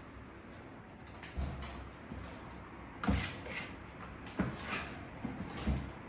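A series of short knocks and thumps, about six over a few seconds, the loudest about halfway through.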